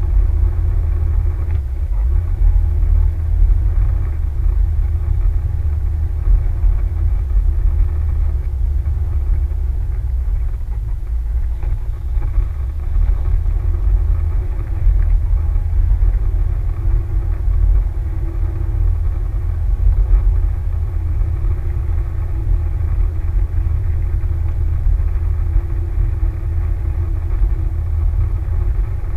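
A vehicle running steadily with a continuous low rumble, without pauses or clear revving.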